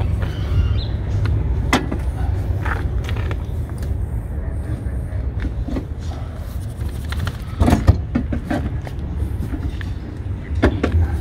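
Scattered knocks and clicks from a van's front seat being fitted back in by hand, with a few sharper knocks about eight seconds in and near the end, over a steady low rumble.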